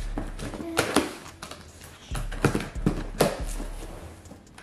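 Cardboard shipping box being opened by hand: flaps pulled up and cardboard scraping and rustling in several short bursts.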